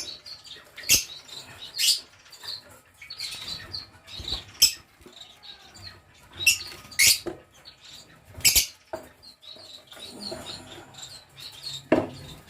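Lovebirds chirping, with about half a dozen short, sharp, loud calls among quieter twittering and some scuffling.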